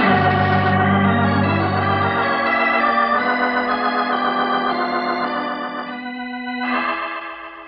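Organ music bridge of held chords, with a deep bass chord under the first two seconds. The chords shift about three seconds in and again near the end, then fade out.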